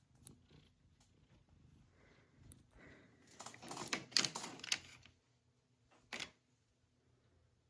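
Faint handling noises: scattered small clicks and rustles, bunched between about three and five seconds in, with one sharper click about six seconds in.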